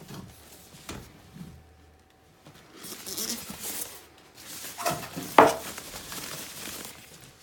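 Plastic packing bag rustling and styrofoam packing pieces being handled during unboxing, with one sharp knock about five seconds in as a foam piece is set down on the wooden floor.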